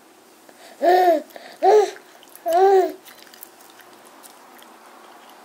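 Baby boy of about seven months vocalizing: three short cooing sounds, each rising and then falling in pitch.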